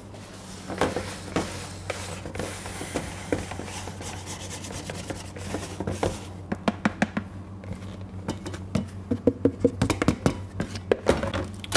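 Hands rubbing and scooping flour in a plastic bowl. About six seconds in comes a quick run of clicks and knocks as the plastic bowl is tipped and scraped out over a stainless steel mixer bowl. A steady low hum runs underneath.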